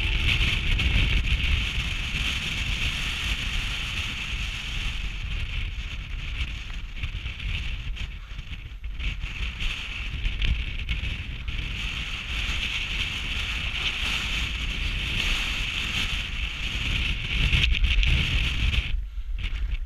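A camera drone's propellers run with a steady high hiss while wind buffets the microphone with a constant rumble. Both stop suddenly just before the end.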